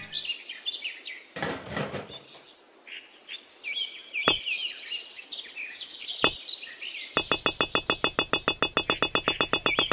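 Birds chirping and tweeting, with two sharp clicks in the middle. In the last three seconds comes a fast, even rattling trill of about ten strokes a second.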